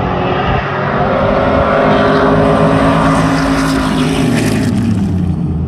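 Stadium Super Truck V8 engines at full throttle passing along the track, the engine note rising as they approach and dropping in pitch as they go by about four to five seconds in.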